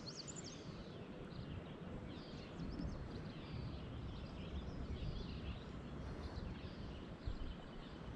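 Small birds chirping and singing in short, scattered phrases over a steady low rumble.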